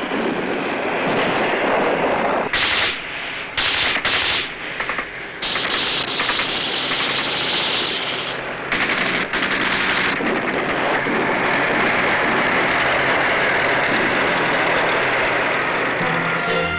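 Dense, continuous machine-gun fire on a battle soundtrack, with several louder stretches of rapid firing in the first ten seconds.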